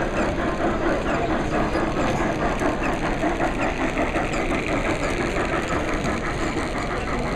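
A machine running steadily, with a rapid, even ticking.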